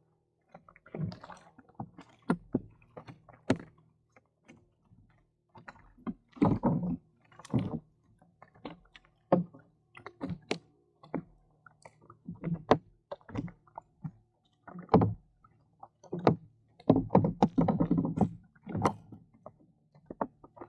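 Handling noises on a fishing kayak: irregular knocks and clunks of gear against the kayak hull, with a few short clusters of denser handling noise, while a hook is rebaited.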